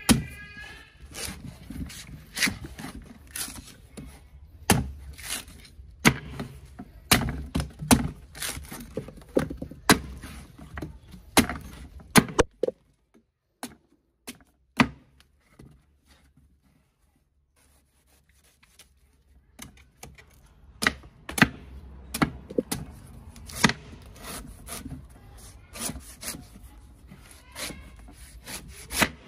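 Machete chopping and shaving the fibrous husk off a young green coconut on a wooden table: repeated sharp cuts and knocks with scraping in between. There is a pause of several seconds about halfway through.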